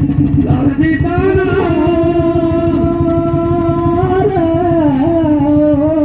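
Garhwali ritual folk music: fast, steady drumming under one long held melodic note that bends slightly in pitch now and then.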